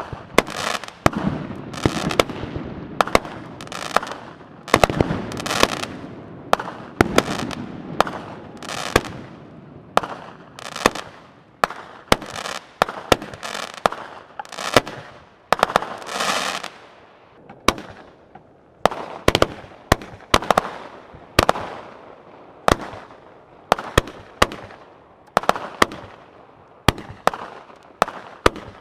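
Aerial fireworks going off in quick succession: sharp bangs about one or two a second, with hissing and crackling between them.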